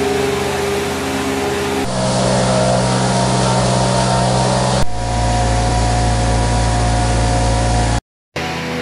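Picus bale straw choppers running, their rotors shredding straw and blowing it out, over the steady drone of the engines carrying them. The sound changes abruptly twice as a different machine cuts in, and drops out briefly near the end.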